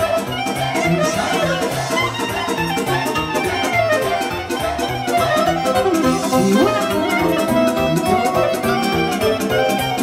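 Live band playing an instrumental passage of a fast Romanian sârbă: a quick melodic lead over a steady, fast beat.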